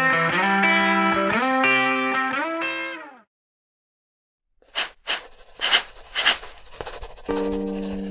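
Guitar-like music with notes that slide in pitch, fading out after about three seconds and followed by a second or so of silence. Then come five or six short, sharp noise bursts, and near the end a steady held musical tone begins.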